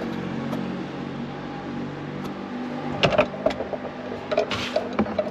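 A steady low mechanical hum that fades about halfway through, then clicks and knocks of hands handling tools and parts on the plastic dash.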